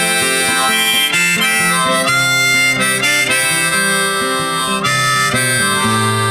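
Background music: an instrumental break led by harmonica over acoustic guitar.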